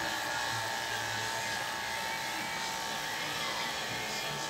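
Corded electric hair clipper running steadily as it is pushed through short hair on the side of the head.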